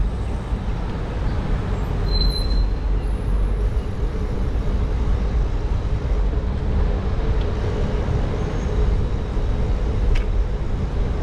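Steady street traffic and road noise heard from a moving bicycle, with wind rumbling on the camera microphone. There is a brief high squeak about two seconds in.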